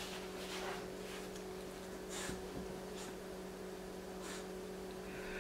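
Quiet room tone: a steady low electrical hum, with a few faint, brief soft noises about two seconds apart.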